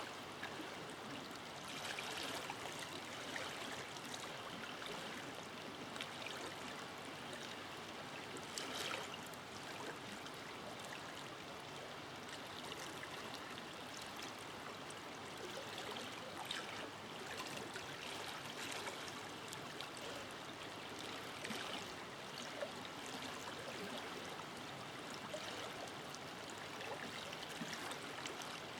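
Forest river flowing: a steady rush of water, with small splashes and gurgles every few seconds.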